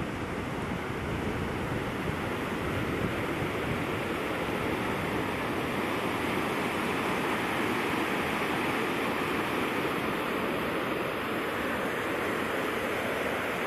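Small mountain torrent rushing in white water over its rocky bed: a steady, unbroken rush of water.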